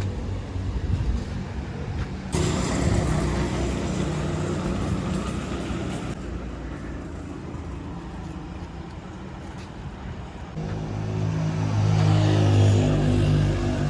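Roadside traffic: motor vehicle engines running with road noise, one engine louder and closer from about two-thirds of the way in.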